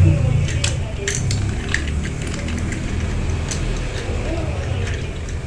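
Battery-powered toy train being tried out: a steady low motor hum with scattered light plastic clicks and clatter.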